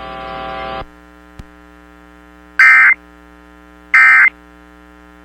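Emergency Alert System end-of-message code: two short, loud bursts of screeching digital data tones about a second and a half apart, over a steady hum of AM radio reception. A faint hiss cuts off just under a second in.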